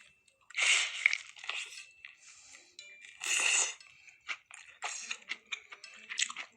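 Crisp crunching and crackling from food being prepared, with two louder bursts, about a second in and again about three seconds in, and smaller crackles between, over faint background music.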